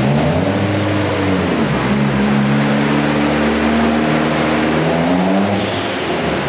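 Turbocharged Ford Focus engine revving up and holding revs, dropping back about a second in and again near the end, on a dyno run with its fuel map just leaned out from very rich.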